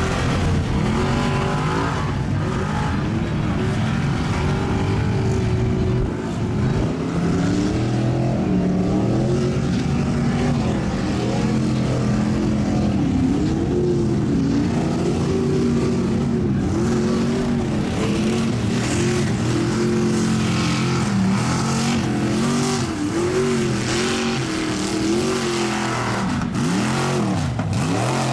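Jeep's engine revving hard again and again, its pitch rising and falling as the wheels spin in deep mud, flinging mud; the revs swing up and down faster near the end.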